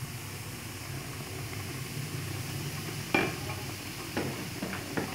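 Semolina sizzling in hot ghee in a large metal pot, just poured in on top of fried green cardamom. From about three seconds in there are a few sharp knocks.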